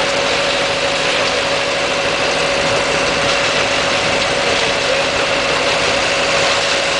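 Engine-driven machinery running steadily: a constant loud drone with a steady whine over it.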